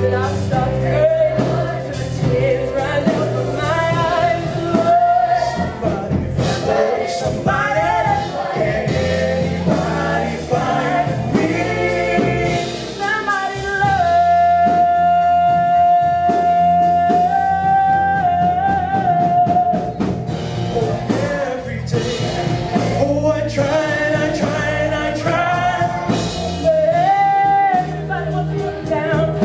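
A song sung with instrumental backing, the singer holding one long high note about halfway through.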